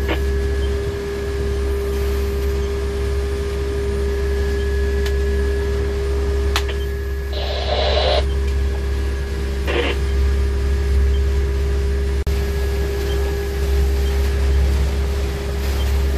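Pilot boat's engines running steadily, heard inside the wheelhouse as a deep drone with a constant hum. A short hiss rises over it about seven seconds in, and a briefer one comes just before ten seconds.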